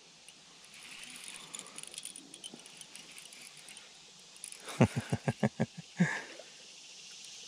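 Baitcasting reel being cranked faintly as a small hooked fish is reeled in, with insects in the background. About five seconds in, a quick string of about eight short low pulses, then one more about a second later.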